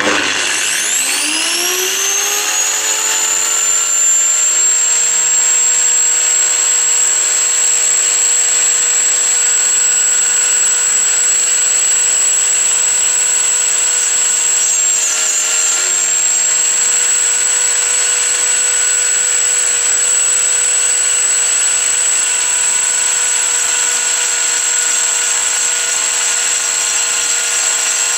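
Homemade cylinder-grinding rig on a benchtop lathe, belt-driven by a 2.2 kW angle grinder, spinning up with a rising whine over the first two seconds and then running at a steady high whine. A brief dip in pitch comes about fifteen seconds in. It is running far too fast, in the owner's view, and the drive belt overheats.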